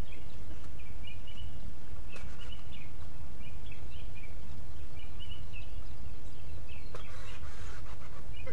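Steady low wind rumble on the microphone, with small birds chirping over and over. There is a short rustle about seven seconds in.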